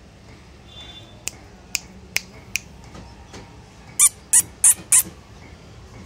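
Cockatiel calling: four short, sharp chirps, then about four seconds in a run of four much louder calls, roughly three a second.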